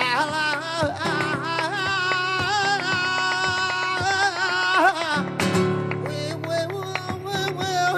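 Flamenco singer with acoustic flamenco guitar: one long melismatic sung line, its pitch wavering, held for about five seconds, then breaking into lower notes, over plucked and strummed guitar.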